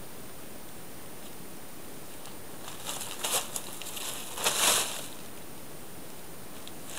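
Blue plastic tarp crinkling and rustling as cats scuffle on it: a few short bursts about three seconds in and a louder one around four and a half seconds, over a steady background hiss.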